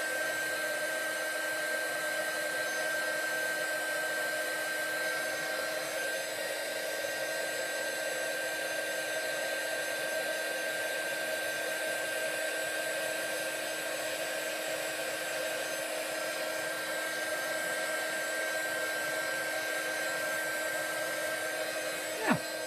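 Handheld craft heat tool blowing steadily, its fan running with a constant airy rush and a steady whine, used to dry ink on a paper tag. A brief knock near the end.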